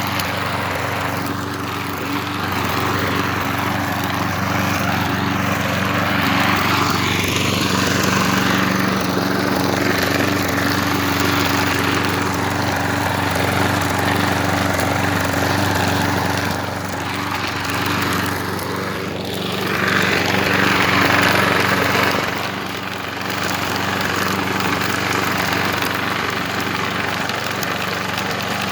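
A Craftsman lawn mower's newly fitted engine running steadily during mowing, its hum holding an even pitch while the sound swells and eases as it works through the grass. It is louder for a couple of seconds about two-thirds of the way through.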